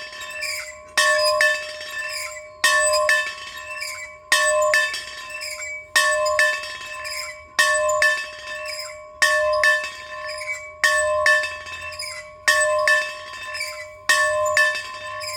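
A bell being rung by swinging: a strong stroke about every one and a half seconds, each followed closely by a lighter one, with a clear ringing tone that fades between strokes.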